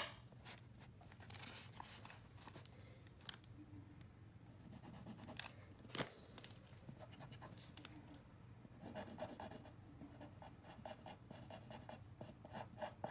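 Pencil scratching on paper in short, separate strokes, with a sharp tap right at the start and another about six seconds in.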